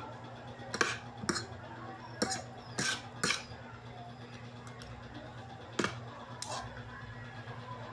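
Metal spoon and fork clinking and scraping against a ceramic plate while eating: about seven sharp clinks, most of them in the first three and a half seconds, over a low steady hum.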